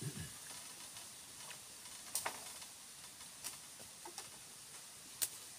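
Knife cutting ripe mangoes and slices being set down on banana leaves: a handful of short, sharp clicks and light taps, with a faint steady high hiss behind them.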